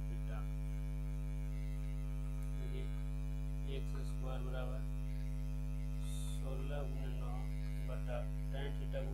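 Steady electrical mains hum, with faint snatches of a voice now and then.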